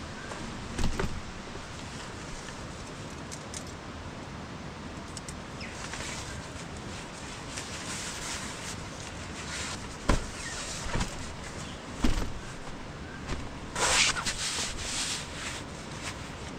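Scattered knocks and clinks with bouts of rustling, the loudest rustle near the end, over a steady background hiss.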